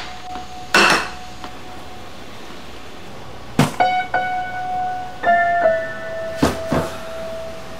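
Slow piano music of single held notes that change every second or so, with a few sharp knocks over it: one about a second in, one in the middle and two close together near the end.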